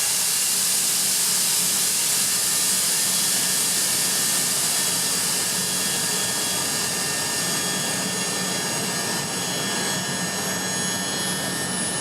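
Atlas Copco ZT132FF oil-free rotary screw air compressor running, a steady mechanical hum with whining tones under a strong hiss of air; the hiss gradually eases over the second half.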